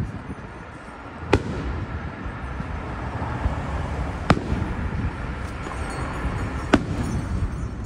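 Aerial firework shells bursting overhead: three sharp bangs a few seconds apart, over a continuous low rumble.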